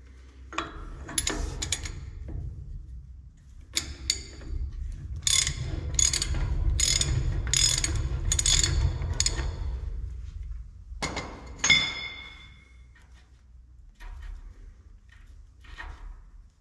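Ratchet wrench with a large socket clicking in quick runs as it turns the spindle nut on a Dexter trailer axle hub. A ringing metal clink comes near the end.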